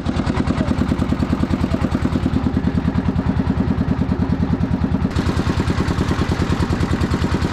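Engine of a wooden country boat running steadily, with an even pulse of about nine beats a second. A rushing hiss joins about five seconds in.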